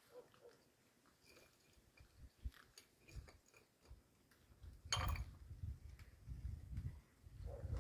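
A cat chewing and crunching on a meaty chicken bone: faint scattered clicks, then a sharp crunch about five seconds in, followed by low muffled thumps.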